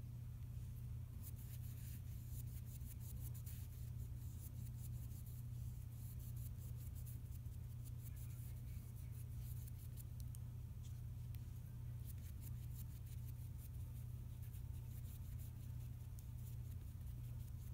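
Paintbrush stroking and dabbing acrylic paint onto a denim tote bag: faint, rapid scratchy ticks over a steady low hum.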